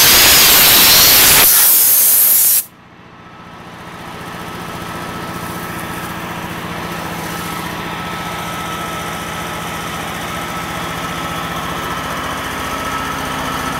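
Compressed air hissing hard from a blow nozzle, cutting off abruptly about two and a half seconds in. Then a belt-driven piston air compressor with an electric motor runs with a steady hum, growing louder over the next couple of seconds.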